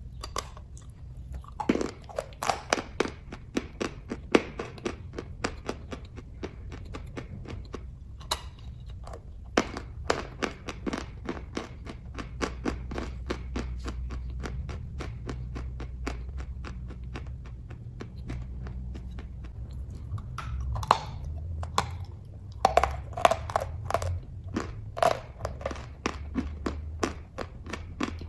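Close-up chewing of kaju katli, soft cashew fudge: rapid small wet clicks and smacks of the mouth, coming in bouts, over a steady low hum.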